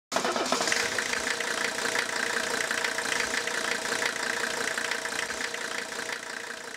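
Diesel engine running steadily, starting suddenly and fading out near the end.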